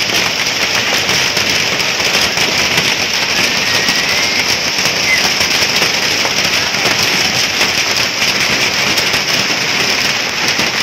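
Hailstones and heavy rain pelting the ground and parked scooters: a loud, steady, dense crackle of countless small impacts.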